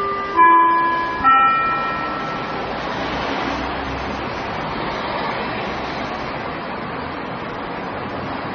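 The last two notes of the falling closing chime from an outdoor municipal disaster-prevention loudspeaker, two chime tones about a second apart that ring out over about two seconds, signalling the end of the broadcast. Steady street and traffic noise follows.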